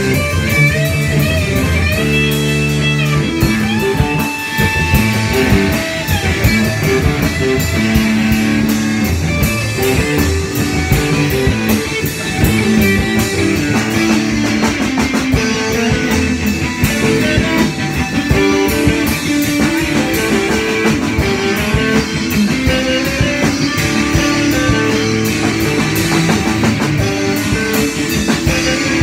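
Live improvised blues-rock jam: electric guitars playing over a drum kit with steady cymbal hits, no singing.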